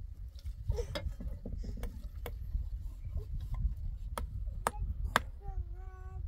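A series of sharp knocks and clinks of hard objects being handled, spaced irregularly about half a second to a second apart, over a low steady rumble. Near the end comes a short held call, about a second long.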